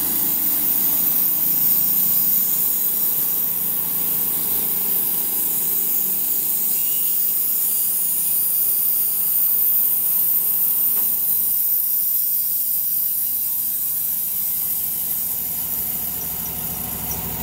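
Wood-Mizer LT15 portable band sawmill sawing through a fire-charred log: the sawmill's engine runs steadily under load while the band blade hisses through the wood, easing off slightly near the end.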